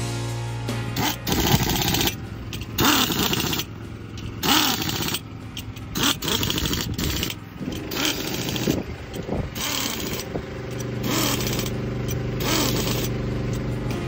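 A handheld pneumatic air tool on a combine header's sickle bar goes in about eight short bursts, each under a second, while the old knife sections are swapped for new ones. Background guitar music plays underneath.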